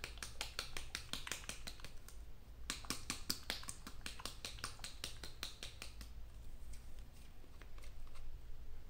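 Small capped glass jar of paint being shaken to mix in a few drops of saline, a quick series of clicks, about five a second, that thins out after about six seconds.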